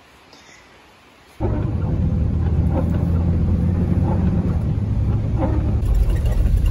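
Engine and road noise from inside a moving vehicle's cab, a steady low hum that cuts in suddenly about a second and a half in after faint room tone, with a hiss that grows near the end.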